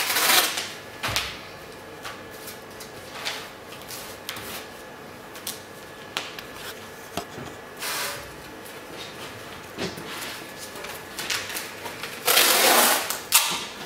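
Adhesive tape being pulled off the roll and pressed down onto a paper envelope on a wooden table, with light knocks and paper rustles from the handling. A longer strip pulled off the roll near the end is the loudest sound.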